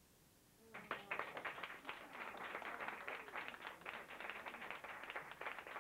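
Audience applause. A moment of near silence after the poem's last line, then under a second in a small audience starts clapping, dense and steady, and keeps on clapping.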